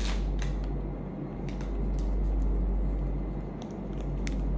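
Low steady rumble of room noise, with a few faint clicks and taps as a small packaged item is handled.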